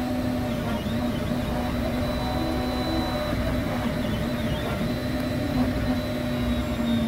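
XYZprinting da Vinci Super 3D printer running a print: a steady machine hum with whining motor tones that shift in pitch now and then as the print head moves.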